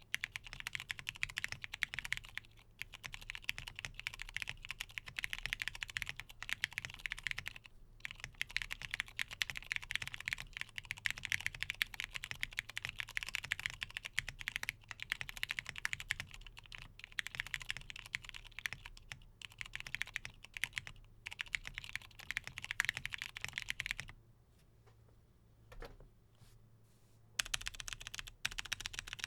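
Continuous typing on a mechanical keyboard: a Monokei x TGR Tomo with lubed Hyperglide Cherry MX Brown tactile switches on a polycarbonate plate, with PBT Cherry-profile keycaps. The typing stops for about three seconds near the end, then starts again.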